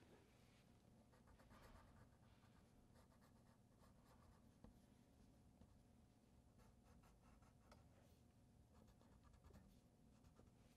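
Faint scratching of a green wax crayon rubbed back and forth on paper, colouring in a drawing, over quiet room tone.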